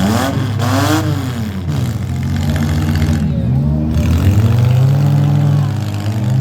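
Minivan engines revving hard in a demolition derby, the pitch climbing and falling again and again as the drivers get on and off the gas, with a sharp revving sweep about a second in.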